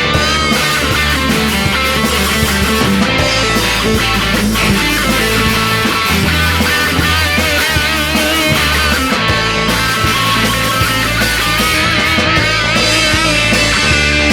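Rock band playing an instrumental break between sung verses, with a wavering guitar line over bass and drums.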